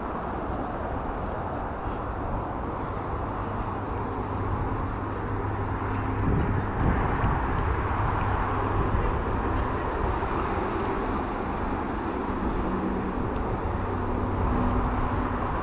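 Steady low outdoor rumble, a little louder around the middle, with a few faint light clicks.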